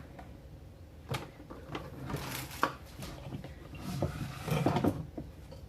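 Plastic kitchenware being handled: a couple of sharp taps, the louder one about two and a half seconds in, between stretches of scraping and rustling.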